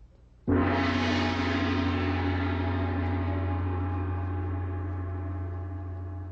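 A large gong struck once about half a second in, then ringing on and slowly dying away.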